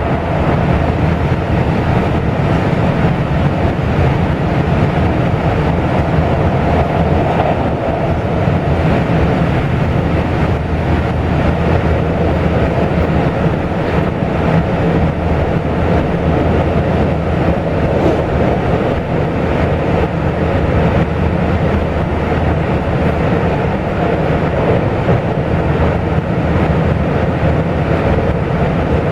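Steady running noise of a Taiwan Railway local express train, heard from on board: an even rumble of the wheels on the track with no breaks.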